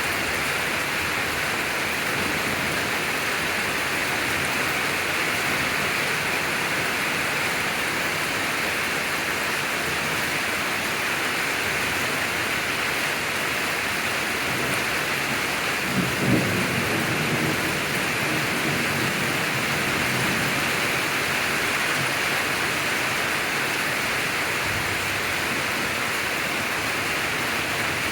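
Steady heavy rain falling during a thunderstorm, with a short roll of thunder about halfway through that rumbles low and fades over a few seconds.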